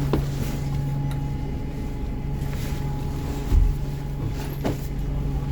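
Bus engine running with a steady low hum, heard from inside the passenger cabin, with a couple of sharp clicks and a dull thump about three and a half seconds in.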